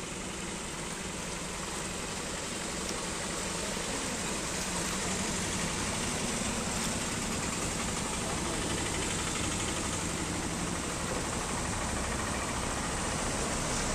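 Motor vehicles wading through floodwater: an engine running under a steady wash of water, growing gradually louder as a bus approaches.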